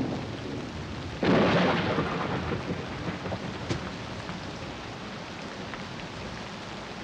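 Steady heavy rain with a sudden thunderclap about a second in that fades away over the next couple of seconds.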